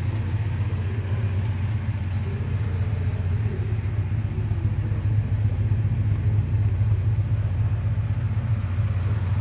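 1958 Sunbeam Rapier's four-cylinder engine idling steadily, a low even rumble.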